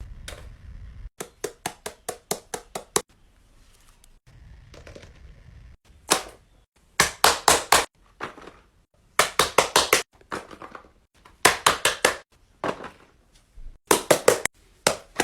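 Runs of sharp, rapid taps on small hard objects, about five to eight strokes a second, in short bursts with pauses between.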